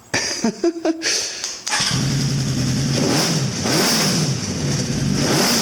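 1983 Honda CB1000C's inline-four engine firing up about two seconds in after a few short noises, then running with the throttle blipped up and down several times. It is starting after a no-start that the owner puts down to a possibly dead battery.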